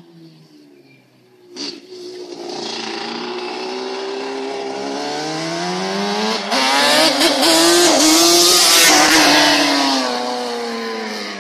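Yamaha Banshee ATV's two-stroke twin engine accelerating toward the listener, its pitch climbing as it comes closer and gets loud, then dropping and fading as the quad goes by.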